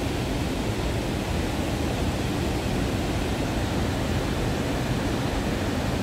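Water rushing over a stepped river weir: a steady, even rush of falling water with a low rumble underneath.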